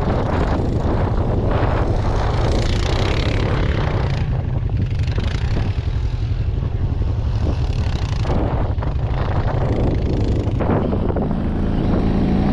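A vehicle engine running steadily while driving, with wind buffeting the microphone in gusts.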